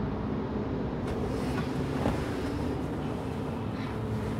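Car driving on a wet road in the rain: a steady low rumble of engine and tyres under a hiss of water, the hiss brightening about a second in, with one light tick about two seconds in.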